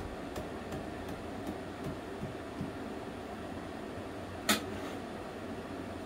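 Steady low background hum in a small room, with a few faint ticks in the first two seconds and one sharp click about four and a half seconds in.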